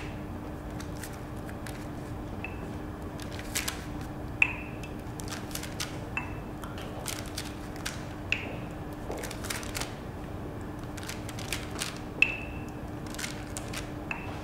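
Pastry brush tapping and clinking against the rim of a mug of egg wash while scones are brushed: irregular light clicks, about six of them with a short bright ring, over a steady faint hum.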